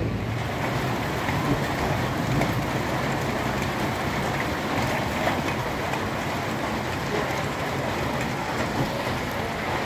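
Steady rain falling, a dense hiss of many small drops pattering.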